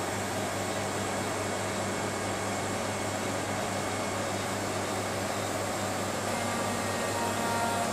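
NORTE VS 500 Speed vertical machining center running: a steady mechanical hum and whir from its auxiliary units, with a faint higher tone coming in briefly near the end.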